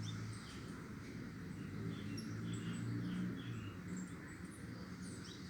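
Small backyard birds chirping: many short, high calls scattered throughout, over a steady low hum.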